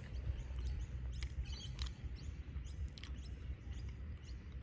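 A person chewing a mouthful of soft apple spring roll, with scattered small mouth clicks over a steady low rumble.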